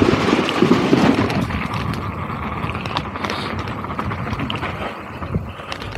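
Mountain bike riding fast downhill: steady rush of wind on the microphone and knobby tyres rumbling over the trail, with a louder rattle over wooden boardwalk slats in the first second or so, then a few scattered clicks and knocks from the bike over the dirt.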